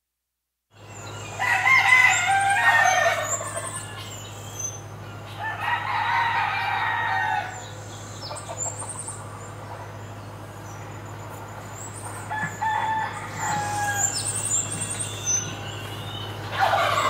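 Roosters crowing, four long crows a few seconds apart, over a steady low hum.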